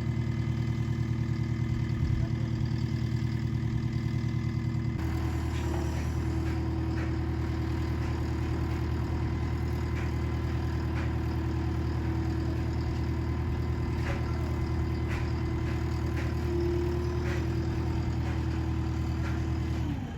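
An engine idling steadily. Its tone changes abruptly about five seconds in, and it cuts off at the very end.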